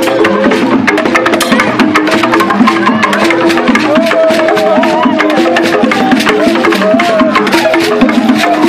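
Traditional Wimbum masquerade music: drums and wooden percussion playing a fast, dense rhythm, with a wavering melody line over it.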